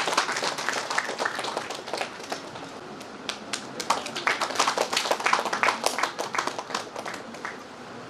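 Audience applauding: many hands clapping irregularly, thinning briefly about three seconds in, picking up again, and dying away near the end.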